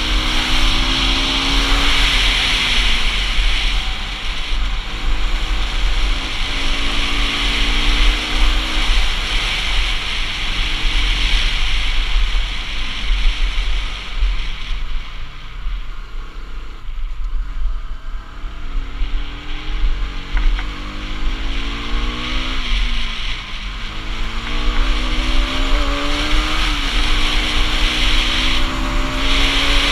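Bajaj Pulsar RS200 single-cylinder motorcycle engine under way, its pitch rising under throttle and dropping back again several times, easing off for a few seconds around the middle. Strong wind rush on the action-camera microphone runs underneath.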